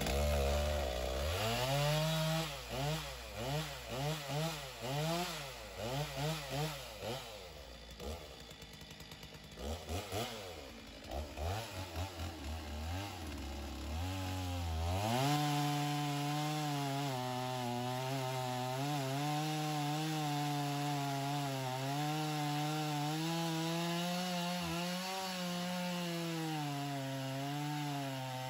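Stihl two-stroke chainsaw in a homemade Alaskan chainsaw mill. It is revved up and down repeatedly for several seconds and drops low for a few seconds. From about halfway it is held at full throttle while ripping a slab lengthwise through an oak log, its pitch nearly steady with slight dips as the chain loads up in the wood.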